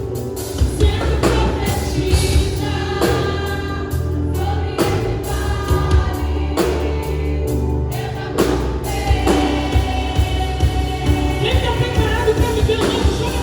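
Gospel worship song with voices singing together over a band, with bass and a regular drum beat.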